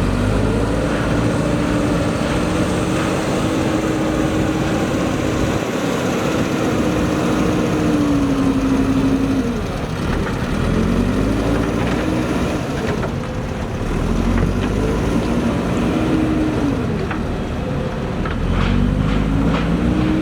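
JCB backhoe loader's diesel engine working under load: it revs up, holds, and drops back about four times as the machine digs and scoops. A few sharp clanks come near the end.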